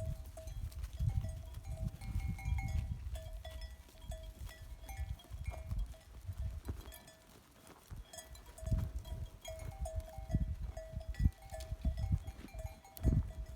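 Livestock bells clinking irregularly, short ringing notes that come again and again over a low, uneven rumble, quieter for a couple of seconds midway.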